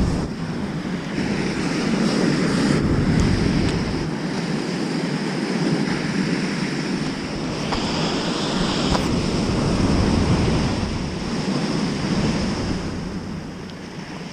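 Heavy surf breaking and washing up a sandy beach, swelling louder twice, with wind buffeting the microphone as a low rumble in the first few seconds. A few faint knocks from the camera being handled.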